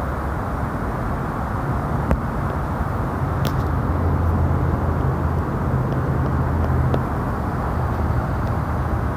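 Steady low rumble of distant traffic, with an engine drone that swells for a few seconds in the middle and then eases. A few faint clicks.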